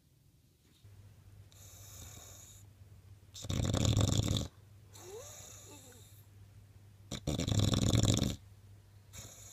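A sleeping French bulldog snoring: two loud snores about a second long, roughly three and a half seconds apart, with softer breaths between them.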